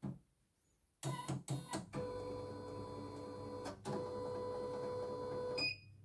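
Computerized embroidery machine's motor running for about four and a half seconds with a steady whine, starting with a few clicks and stopping with a short beep. Its rotation is stiff.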